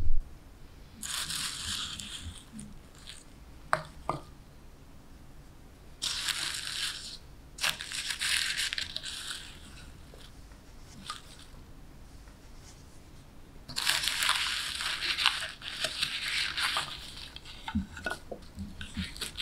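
Dry, curled wood shavings from spoon carving tumbling and rustling onto wooden spoons and a stump: a crisp crinkling rustle in four bursts of one to three seconds each, with a few light clicks between them.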